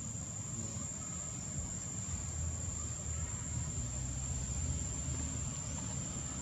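Steady outdoor background noise: a low rumble under a continuous high-pitched tone.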